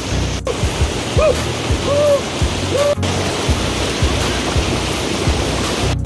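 Mountain stream water rushing steadily over a rocky cascade into a pool, with background music underneath: a regular low beat and a few short melodic notes.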